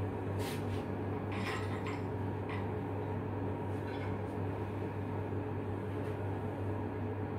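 Steady low mechanical hum, with a few light metal clinks and scrapes from hands and tools working on a flanged steel pipe valve.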